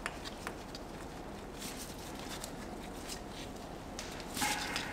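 Faint handling noise from gloved hands fitting an ABS sensor cable and its bracket to the steering knuckle: a few light clicks and rustles over a low steady hum, with a louder rustle near the end.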